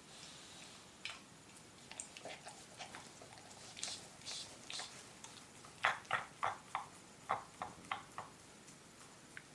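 Dog licking its leg: a series of short wet lapping smacks, scattered at first, then a quicker run of about three a second in the second half.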